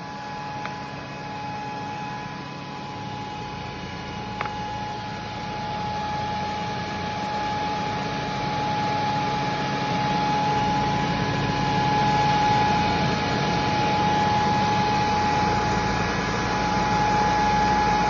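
Wood round-rod making machine running: a steady motor whine over a continuous rushing noise, slowly growing louder, with a single light click about four seconds in.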